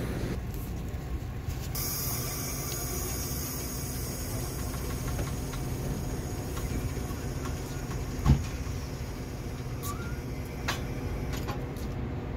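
Metra commuter train standing at the platform, running with a steady low rumble. A high hiss starts suddenly about two seconds in and runs on. One sharp metallic clank comes about eight seconds in, the loudest moment.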